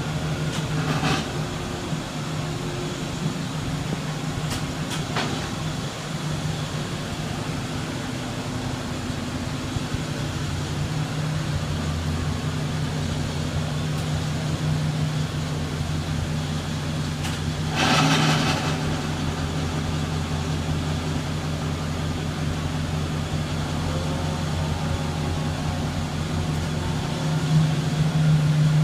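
Chevrolet Impala SS V8 idling with a steady low drone, a few light clicks near the start, and a brief louder rushing burst about 18 seconds in. This is the unexplained noise the car makes on a cold start when shifted into reverse.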